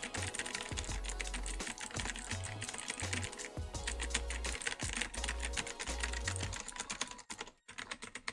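Fast typing on a Logitech G513 Carbon mechanical keyboard with GX Blue clicky switches: a dense run of sharp key clicks that thins out to scattered keystrokes near the end. Background music with a deep bass line runs underneath and drops out about two-thirds of the way through.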